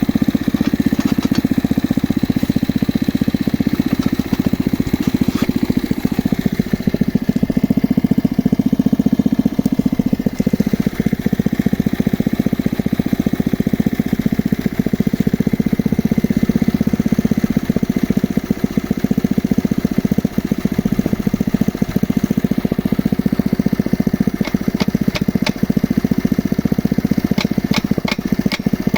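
Engine of a geological exploration drilling rig running steadily, with a run of sharp clicks near the end.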